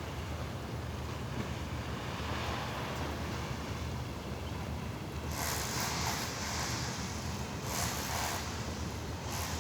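Sea waves and wind over a steady low rumble, with several louder rushes of surf hiss from about five seconds in.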